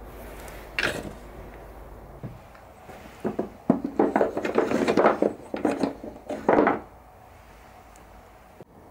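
Carved wooden toy horses clattering and knocking against one another and an oval wooden box as a hand moves them, in a dense run of knocks from about three to seven seconds in. A single knock comes about a second in.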